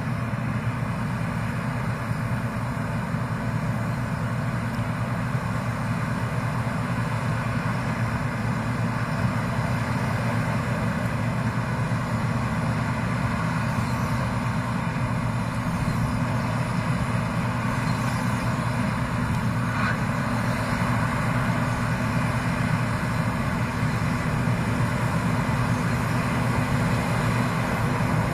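Claas Lexion 460 combine harvester running steadily while harvesting wheat: a continuous low engine drone with an even mechanical rush above it.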